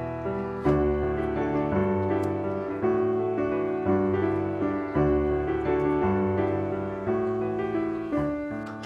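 Background music: a slow piano piece, with a new chord or note struck about once a second and left to ring.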